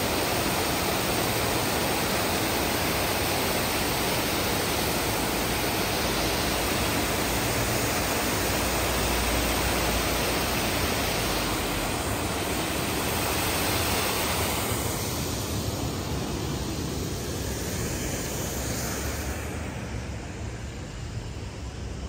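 Water pouring in a broad sheet over a concrete spillway into a river: a steady, dense rushing that grows fainter over the last several seconds.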